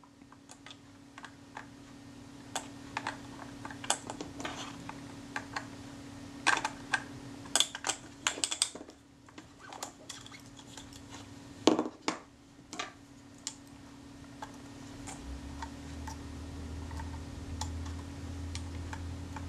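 Scattered small metallic clicks and taps of tools working a Retina I camera's shutter retaining ring in the lens mount, over a faint steady hum.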